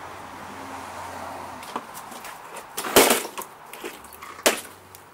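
Three sharp knocks, the loudest about three seconds in, as tools and mower parts are handled during a repair, over a faint steady hiss.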